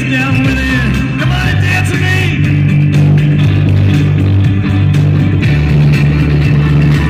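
Live rock band playing: electric guitar over a steady electric bass line, with gliding, bent guitar notes in the first second or so.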